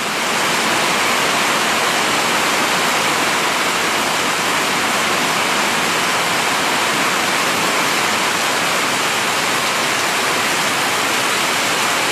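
Heavy rain pouring down steadily, a dense even hiss with no breaks.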